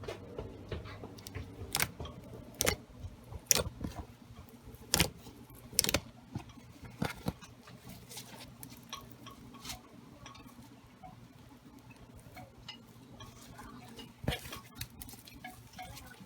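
Homemade slime squished and stretched by hand, giving irregular sticky pops and clicks, thickest in the first few seconds and again near the end.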